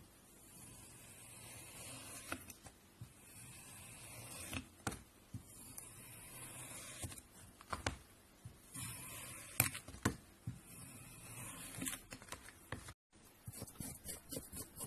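Slime being squished and worked by hand: soft sticky crackling with scattered sharp pops and clicks. After a brief gap near the end, a quicker run of small crackles.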